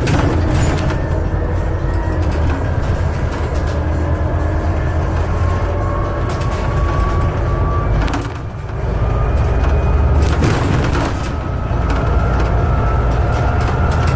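Inside a Scania Citywide CNG city bus on the move: a steady low engine and road rumble under a faint whine that rises slowly in pitch. The noise briefly drops away about eight seconds in, and scattered sharp rattles and knocks come from the body and fittings.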